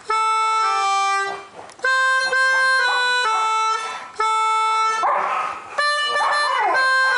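A pianika (melodica) playing a simple tune in held, stepped notes. An Alaskan Malamute howls along with it, a wavering howl that is clearest about five to seven seconds in.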